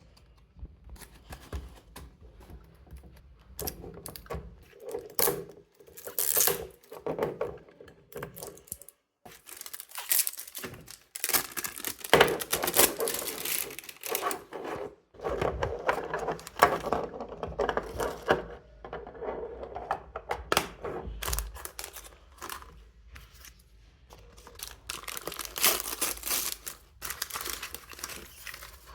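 Hands tearing open and crinkling toy packaging, irregular rustling and ripping with sharp crackles throughout.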